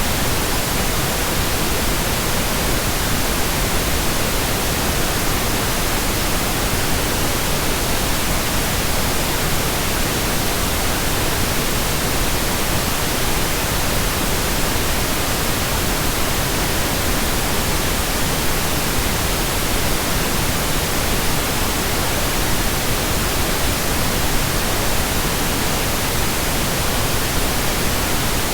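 Steady, unchanging pink noise: an even hiss spread across all pitches with no events in it.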